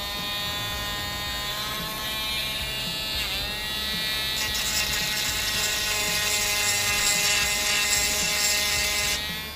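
Small handheld pen-style rotary tool running with a steady whine. Its pitch dips briefly about three seconds in as it bites into the plastic, and it cuts off near the end. It is grinding stray fuzzy filament bits off a 3D-printed ABS part.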